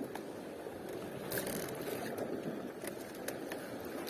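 Steady rush of water and wind around a small fishing boat, with a few faint clicks and a brief rustle about a second in.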